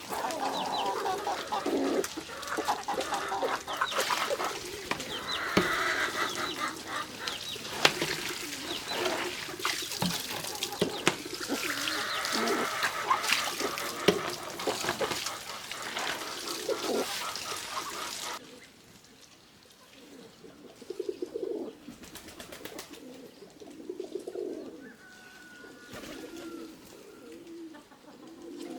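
Farm poultry: chickens clucking amid many small clicks and knocks. About two-thirds of the way through this cuts off suddenly, giving way to a quieter run of low, short pigeon coos.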